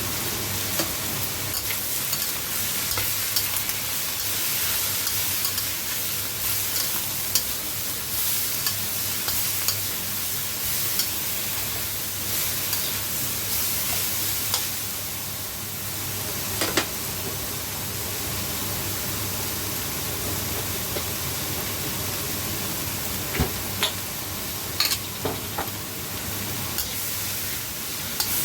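Beef and cabbage sizzling in hot oil in a stir-fry pan while being stirred, with a steady hiss and scattered sharp clicks and knocks of the utensil against the pan.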